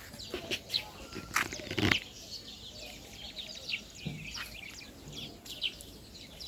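Birds chirping: many short, high calls that each drop quickly in pitch, with a few sharp knocks in the first two seconds.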